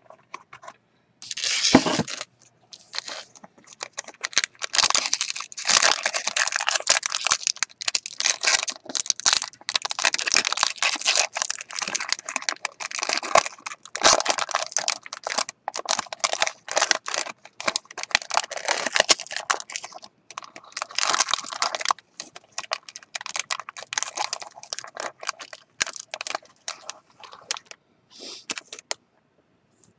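Plastic and cardboard wrapping on a sealed box of Strata baseball cards being torn and crinkled by hand as it is opened: a long run of crackling rustles with short pauses.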